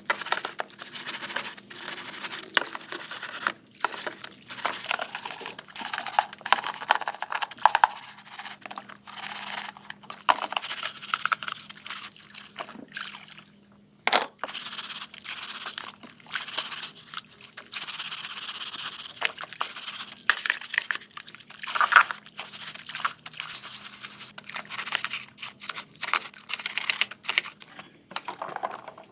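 Rusty metal bicycle parts being scrubbed and scraped by hand in quick, uneven strokes, with a few sharp clicks of metal on metal, one of them louder about two thirds of the way in.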